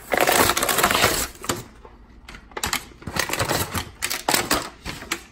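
A plastic blister pack on a cardboard action-figure card being torn open: a loud burst of tearing and crackling plastic at first, then a run of sharp crackles and clicks as the package is worked apart.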